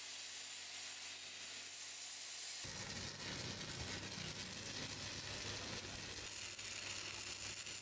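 Plasma cutter hissing steadily as its torch cuts through steel. About two and a half seconds in, this gives way to the rougher, irregular crackle of a stick-welding arc.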